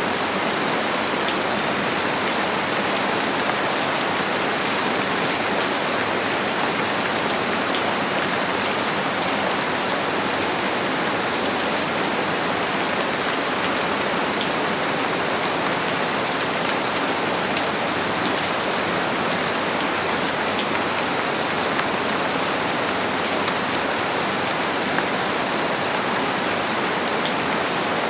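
Steady heavy rain falling on surfaces, a dense even hiss with many small drop ticks and no let-up.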